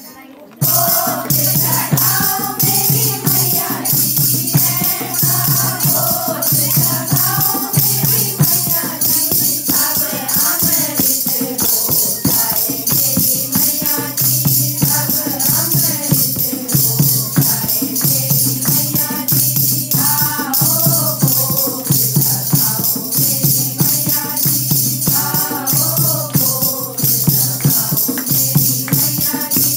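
Devotional song with singing over a fast, steady jingling percussion like a shaker or tambourine, starting abruptly about half a second in.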